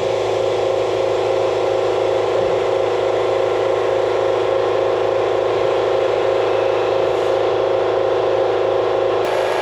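2015 Doosan HP 5100-II horizontal machining center running with a steady mechanical whir and a constant hum.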